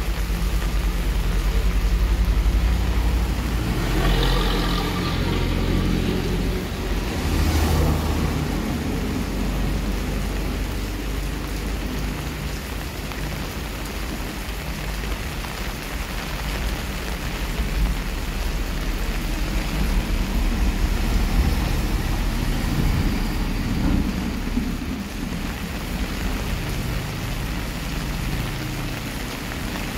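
Steady rain falling on a flooded concrete driveway and garden foliage, a constant hiss with a low rumble underneath and a couple of brief louder swells a few seconds in.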